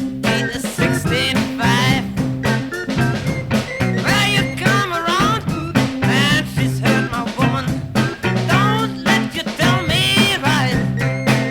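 Dry studio recording of a 1960s beat band playing a song with a steady drum beat: bass guitar, guitar, organ, saxophone and drums under a bending lead melody.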